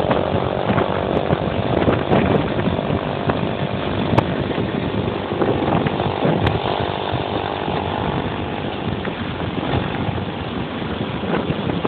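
Small engine running steadily, buzzing at an even pitch.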